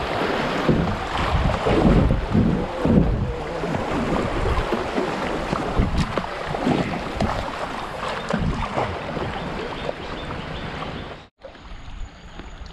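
Fast river water rushing and splashing around a kayak running a shallow riffle, with wind and water noise buffeting the bow-mounted action-camera microphone. The sound drops out abruptly about eleven seconds in, and what follows is quieter.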